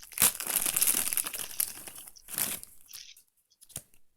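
Packaging crinkling and rustling as it is handled, in a dense crackle for about two seconds and again briefly, followed by a few light clicks near the end.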